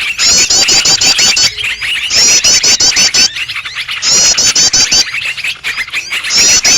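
Bird-lure recording of many small songbirds calling at once: a dense chattering and ticking mix, with a fast phrase of about eight high, hooked notes repeating roughly every two seconds over it.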